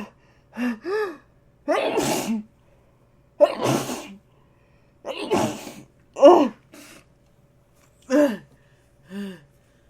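A person sneezing over and over in rapid succession, about one burst a second, with short voiced gasps between the sneezes.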